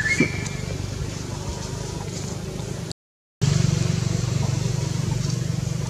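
A low, steady engine-like hum with fine even pulsing, broken by a complete half-second dropout about three seconds in. A brief rising squeak sounds right at the start.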